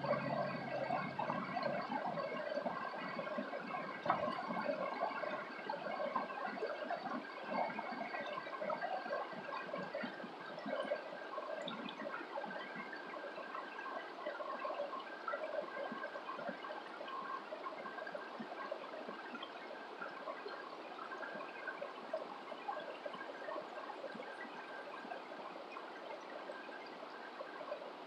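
A shallow rocky stream running over stones: a steady rush and babble of water that eases slightly toward the end. A single brief knock about four seconds in.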